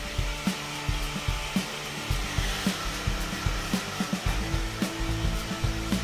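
Handheld hair dryer blowing steadily on a low airflow setting, drying curly hair, over background music with a steady beat.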